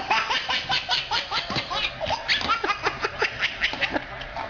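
A baby laughing in a quick run of short giggles, several a second, which eases off near the end.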